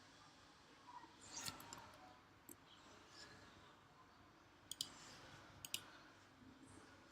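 Computer mouse button clicks in a quiet room: a couple of single clicks, then two quick double-clicks a little past the middle.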